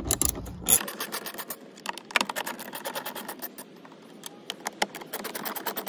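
Rapid, irregular run of light clicks and ticks from hands and tools working at the screws and hard plastic panels of a jet ski's body, quickening toward the end.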